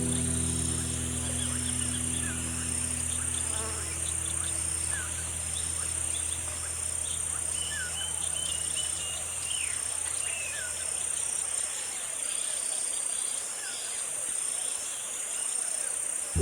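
Insects calling: a steady high-pitched drone with a second call pulsing on and off at an even pace, and scattered short, falling chirps. Held chords of background music fade away over the first few seconds.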